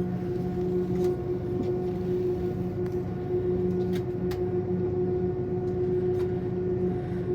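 Airliner noise: a steady mechanical drone with a low hum, and a few faint ticks.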